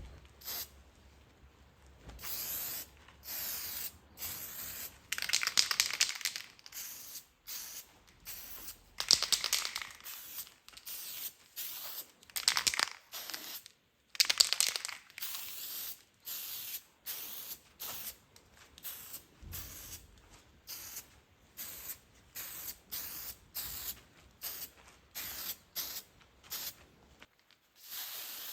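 Aerosol spray paint can spraying in short hissing bursts, with several longer, louder passes.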